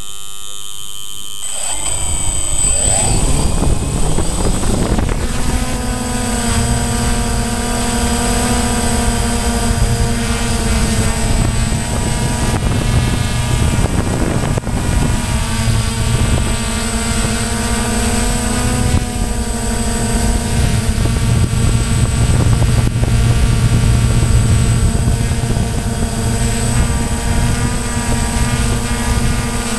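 DJI Phantom quadcopter's four electric motors and propellers spooling up about a second and a half in, rising in pitch as it lifts off, then a steady multi-toned propeller buzz as it climbs and hovers, heard close up from on board.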